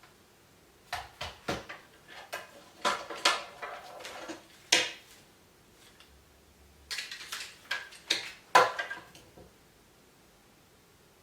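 Clattering of hard objects being handled: sharp clacks and knocks in two bursts, the second with the loudest clack.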